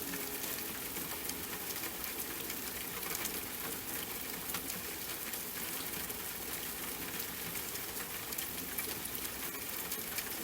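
Steady rain with a dense patter of individual drops ticking on a hard surface.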